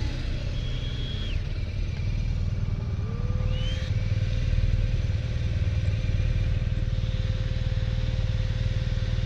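Motorcycle engine running at low revs as the bike creeps along at walking pace, a steady low rumble. A faint steady high tone joins it about three seconds in.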